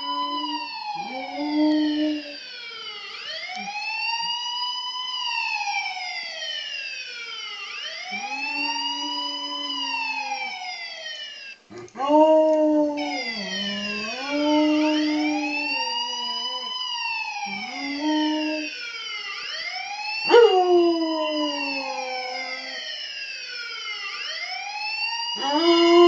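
Police siren wailing up and down, each rise and fall lasting about three and a half seconds. A German Shepherd howls along with it in long held notes, some sliding downward.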